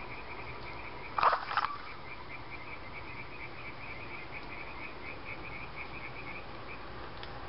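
Frogs calling: a steady, high, fast-pulsing trill that stops near the end, with two loud short calls about a second in.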